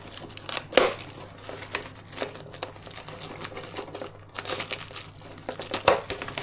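Clear protective plastic wrap crinkling and crackling as it is peeled by hand off an RC truck body, in irregular crackles with a louder crinkle about a second in and another near the end.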